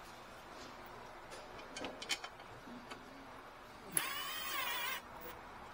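Cordless driver's motor running for about a second, about four seconds in, driving a radiator mounting bolt, its whine dipping and then rising in pitch before it cuts off. A few light clicks and clinks of handling come before it.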